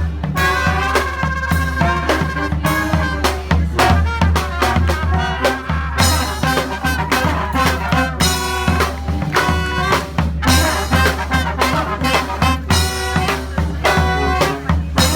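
Brass band playing: horns carrying the tune over a low bass line, with drums keeping a steady beat.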